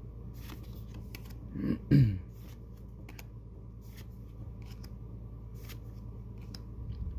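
Pokémon trading cards being handled, with light clicks and swishes as each card is slid from the front of the stack to the back. A short, pitched vocal sound with falling pitch, like a brief hum, comes about two seconds in and is the loudest thing, over a steady low background hum.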